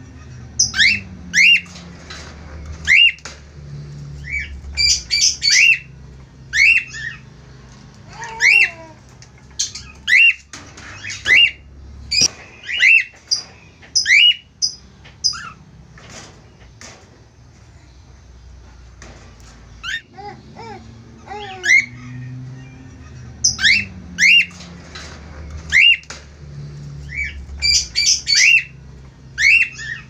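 A pair of cockatiels calling in a cage: short, sharply rising chirps and squawks in quick clusters, with a lull about halfway through.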